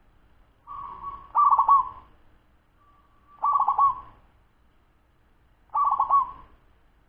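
Ten-month-old local zebra dove (perkutut) singing its fast song. Three coos come about two seconds apart, each a quick rolling run of notes. The first two are led in by a short held note.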